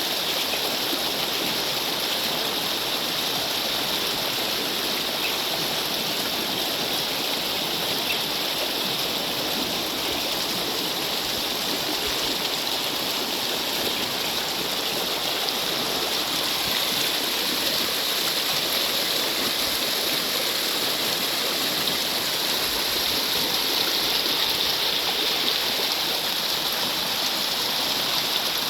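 Steady, even rush of water with no break.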